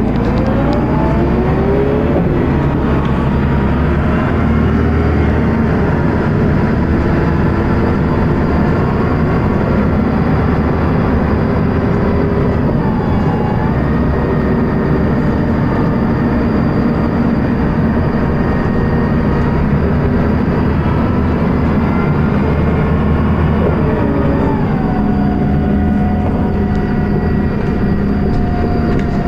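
Dennis Arrow double-decker bus heard from on board, its diesel engine running hard with a loud thrash. The revs climb at the start and change twice as the ZF automatic gearbox shifts; the uploader describes that gearbox as slipping. A steady high-pitched whine holds over the last few seconds.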